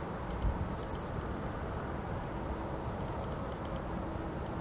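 Insects buzzing in the grass in repeated high-pitched spells about a second long, over a steady low rumble.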